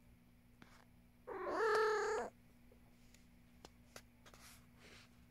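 A domestic cat gives one steady, drawn-out meow lasting about a second, starting about a second in, followed by a few faint ticks and soft breaths.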